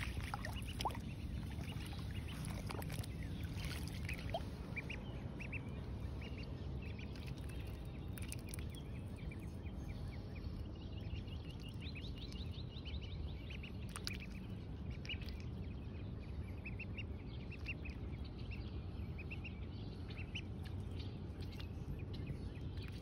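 Call duckling peeping over and over in short high chirps, at times in a quick run, over a low steady rumble.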